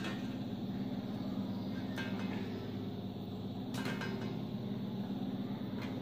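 A steady low hum, with three faint light clicks spread through it.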